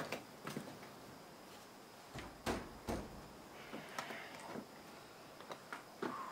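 Scattered light knocks and clicks of someone moving about and handling tools, with two heavier thuds about half a second apart near the middle and a brief rustle after them.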